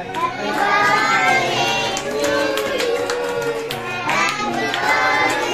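A birthday song with a child singing, and hands clapping along.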